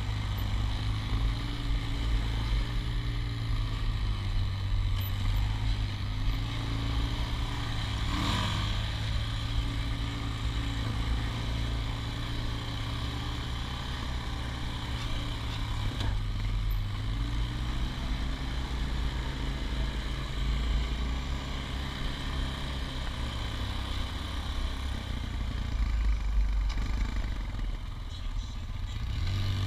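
ATV engine running steadily under the rider, its pitch shifting a little with the throttle. A sharp knock comes about eight seconds in and another about halfway through.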